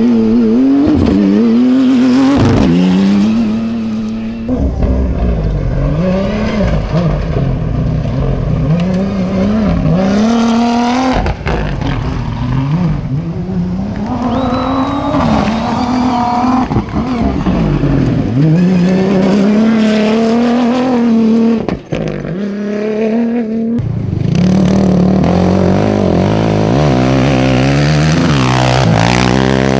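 Rally-raid cars' engines revving hard as they pass one after another, the pitch climbing and dropping with each gear change and lift-off. For the last several seconds a quad bike's engine revs instead, with a faster, choppier note.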